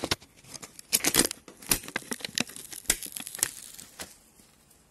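A wooden spoon stirring thick soup in a stainless steel pot: irregular knocks and scrapes for about three and a half seconds, then much quieter.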